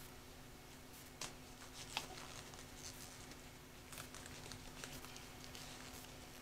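Faint rustling and scattered small clicks of disposable gloves being pulled on and handled, over a steady low hum from lab equipment.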